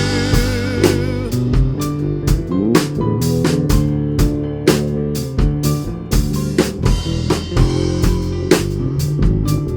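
Worship band playing an instrumental passage: drum kit keeping a steady beat under guitar and sustained chords, with no singing.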